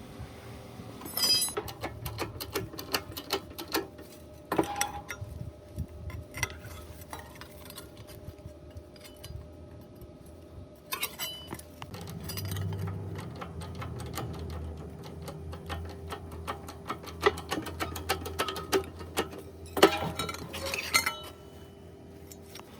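Metal clinks, taps and knocks from hand tools and sheet-metal panels being handled during auto body rust repair, coming in irregular clusters. A low steady hum joins about halfway through.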